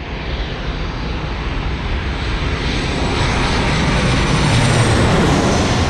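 Jet engines of a Boeing 737 airliner passing low overhead with its landing gear down. The engine noise builds steadily to its loudest about four to five seconds in, with a faint high whine above it.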